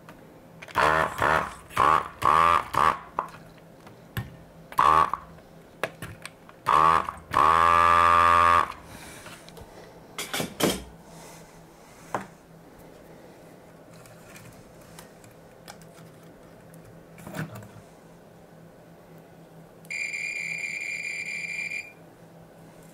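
A desoldering gun's vacuum pump buzzing in several short bursts, then once for about a second and a half. Near the end a multimeter's continuity beeper sounds one steady high beep for about two seconds, the test probes bridging a closed path.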